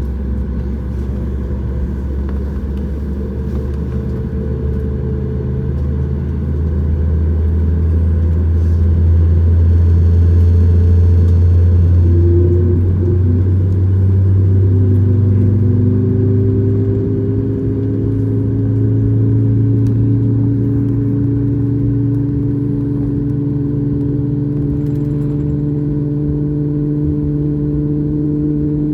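Boeing 737 MAX 8's CFM LEAP-1B jet engines running, heard from inside the cabin: a loud, steady rumble whose tones slowly rise in pitch as thrust comes up, swelling louder about seven seconds in.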